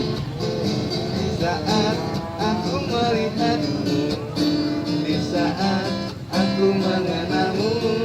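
Acoustic guitar strummed steadily, with a voice singing a wavering melody over it.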